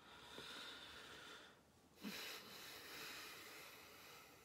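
Near silence: two faint, long breaths, the second beginning about two seconds in.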